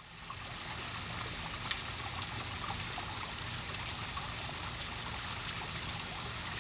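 Shallow stream running over rocks: a steady rush and trickle of water that fades in at the start.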